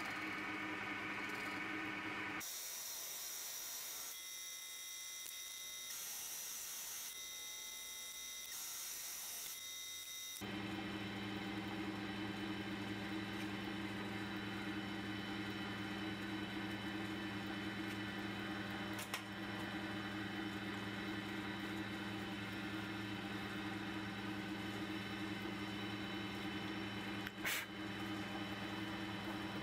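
Myford lathe running with a low, even hum. From about two to ten seconds in, the hum gives way to a higher hiss, and two sharp clicks come later, the louder one near the end.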